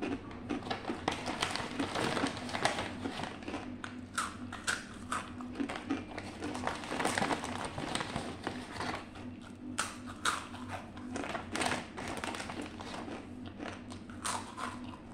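Takis rolled tortilla chips being chewed: an irregular run of crisp crunches, with a faint steady hum underneath.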